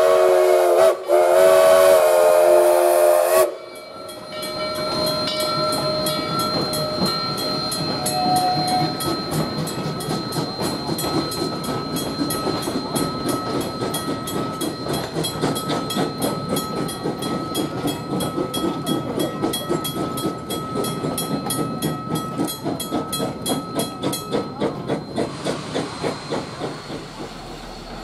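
Narrow-gauge coal-fired steam locomotive blowing its chime whistle, a loud multi-note blast with one brief break, ending about three seconds in. Then the locomotive and its coaches pass slowly with a steady hiss of steam and a fast, even clicking, until the sound changes near the end.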